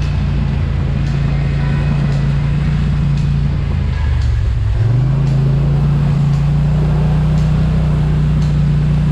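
Off-road vehicle engine running under way, a steady low note that dips briefly about halfway through, then picks back up and holds.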